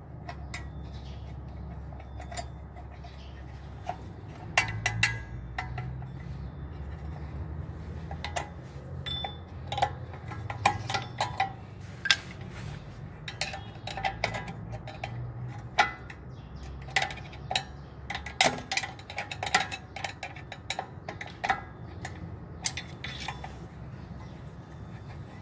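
A screwdriver clicking and clinking against the metal of a rear wheel hub and drum-type handbrake shoe assembly as it is worked in behind the hub: irregular sharp metal taps, more frequent after the first few seconds.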